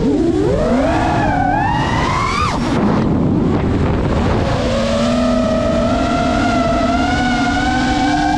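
GEPRC Mark 5 five-inch FPV quadcopter's brushless motors and propellers whining with the throttle: the pitch dips, then climbs for about two seconds. About two and a half seconds in the throttle drops off into a rush of air, then the motors settle into a steady whine.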